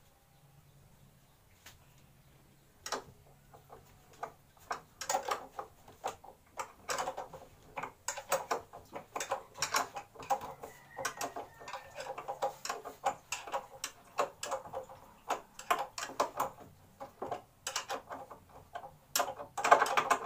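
Quick, irregular clicks and knocks of hands and tools against a plywood wall cabinet being fixed to a concrete wall. They begin a few seconds in and are loudest near the end.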